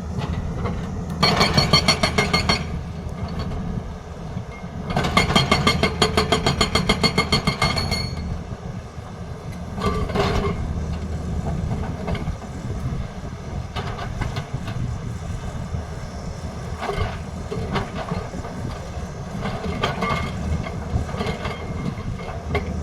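Tata Hitachi excavator's hydraulic breaker hammering in two loud bursts of rapid, evenly spaced blows, the first short and the second about three seconds long. The excavator's diesel engine runs under it throughout, with scattered weaker knocks later.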